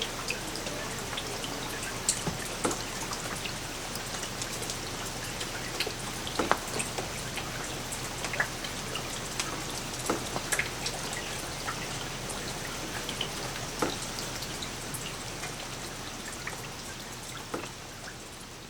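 Light rain falling steadily, with single drops landing close by as scattered sharp ticks over the soft hiss. The sound gradually fades near the end.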